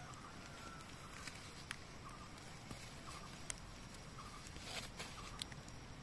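Faint woodland background: a short, thin call repeating about once a second, with scattered small clicks and rustles of dry leaves.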